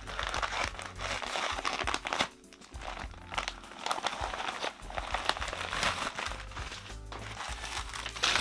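Plastic courier bag being torn open and the packaging inside pulled out, the plastic crinkling and crackling in dense bursts, with a brief lull about two seconds in.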